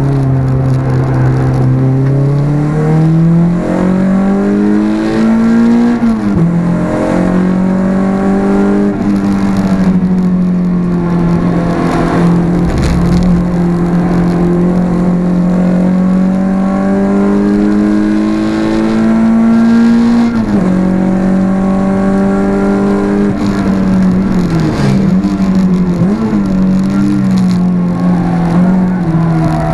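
Renault Clio 172's 2.0-litre four-cylinder engine heard from inside the cabin, pulling hard on track: the note climbs, drops sharply at an upshift about six seconds in, climbs again for a long stretch, drops at another gear change about twenty seconds in, then dips and rises briefly near the end before settling.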